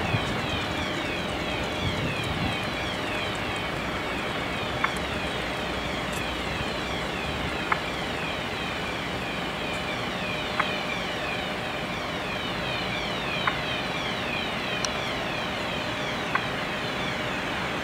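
Fire engines running steadily at the scene, their diesel engines driving the pump and aerial ladder. A faint click comes about every three seconds.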